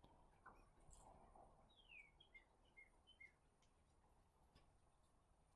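Near silence with faint bird calls: a downward-sliding chirp about two seconds in, then several short high notes.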